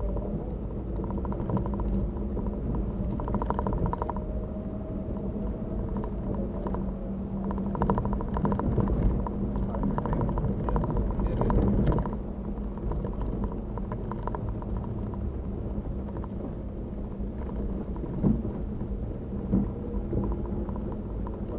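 Cabin noise of a Mitsubishi Pajero on the move: steady engine drone and road rumble, with a stretch of rattling in the middle and two short thumps near the end.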